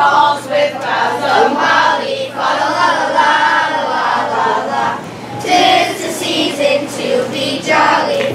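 Fourth-grade children's choir singing a Christmas carol together, with short breaks between phrases.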